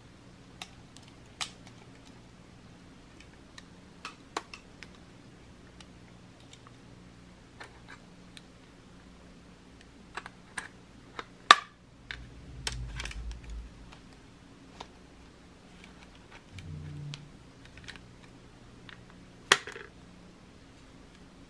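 Long fingernails and a metal vintage confetti compact clicking and tapping against each other as the compact is handled and opened, in scattered sharp clicks. The loudest clicks come about halfway through and near the end, with a few soft low handling rumbles in between.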